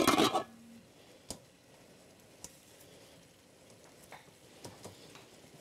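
A few faint, scattered taps and clicks of a spoon working in a stainless steel pot of browning meat, after a short loud burst of noise at the very start.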